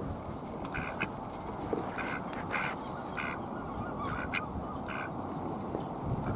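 Mallards giving several short quacks, spaced irregularly about half a second to a second apart.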